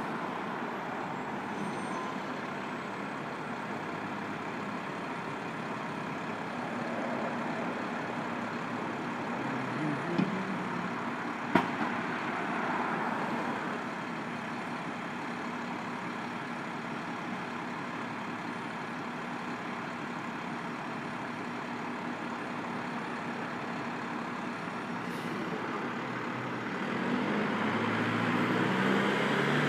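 A DSNY rear-loading garbage truck's engine running steadily, with two sharp knocks about ten and eleven seconds in. The engine gets louder near the end.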